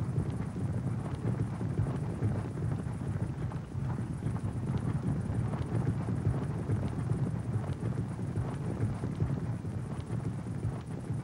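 Hooves of a large group of horses moving together, a dense, continuous low rumble of hoofbeats with faint scattered clicks.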